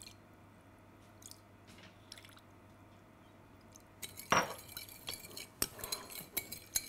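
A metal spoon stirring a vinaigrette in a glass bowl, clinking sharply and repeatedly against the glass from about four seconds in.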